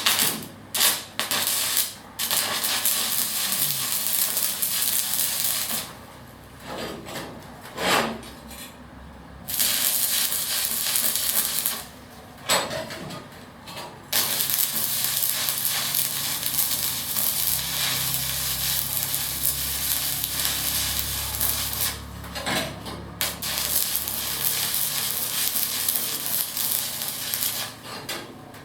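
Electric arc welding: a steady crackling sizzle as the forged steel hook is welded to a steel plate. It comes in several runs broken by short pauses, the longest lasting over ten seconds.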